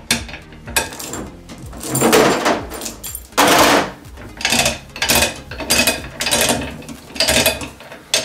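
Manual chain hoist worked by hand: the chain clinks and rattles through the block in a string of short bursts, one per pull, coming quicker from about halfway, as it takes up tension on the hanging load.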